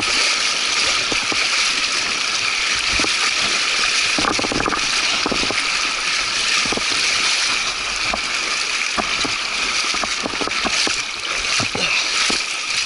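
Shallow mountain river rushing over rocks with splashing, and scattered knocks and clatter as a mountain bike is pushed through the water. It grows a little quieter near the end.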